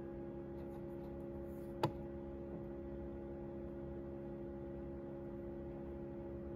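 A steady electrical hum made of several held tones, with a single sharp click about two seconds in.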